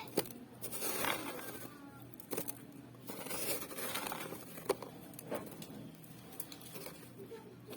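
Refrozen shaved ice being crunched and chewed close to the microphone: irregular crisp crunches with a few sharp clicks.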